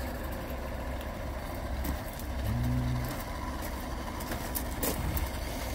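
1/12-scale garden railway train running along its outdoor track: a steady low rumble with a few light clicks, and a brief low hum about halfway through.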